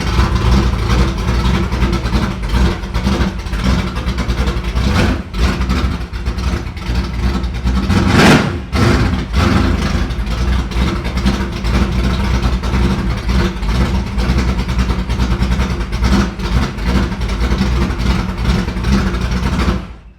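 A car's engine running while the car is driven out of a garage, with a brief louder surge about eight seconds in. Wind buffets the microphone throughout.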